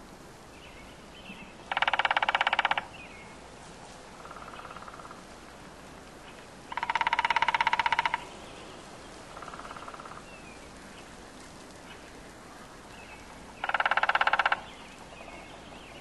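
Black woodpecker drumming on a pine trunk: three loud rapid drum rolls, each about a second long, with two fainter, shorter rolls between them.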